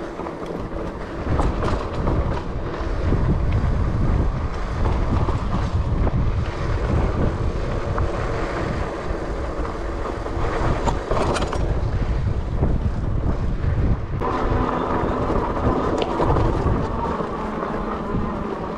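Off-road ride on an electric fat-tire bike: a continuous rumble and rattle of the fat tires and frame over a rough dirt and gravel trail, with wind on the microphone and scattered small clicks. About fourteen seconds in, a steady hum joins the rumble.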